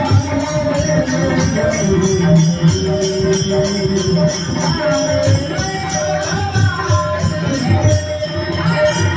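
Varkari bhajan music: small hand cymbals (taal) clashing in a fast steady rhythm, about four strokes a second, over a drum beat and a held, wavering melody line.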